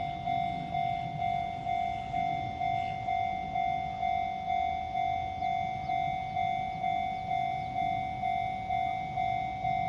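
Japanese level-crossing alarm ringing: its electronic bell sounds one tone struck about twice a second, each strike fading slightly before the next, at an even rhythm.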